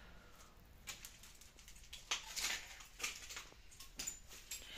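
Footsteps crunching over rubble and broken debris on a tiled floor, a few irregular steps with short scraping crunches.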